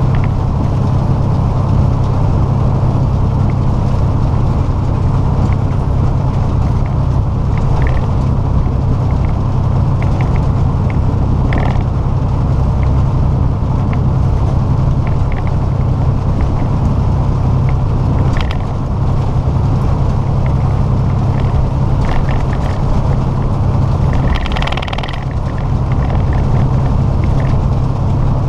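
Inside a semi-truck cab at highway speed: steady low engine drone and road rumble, with occasional light clicks and rattles and a brief hiss near the end.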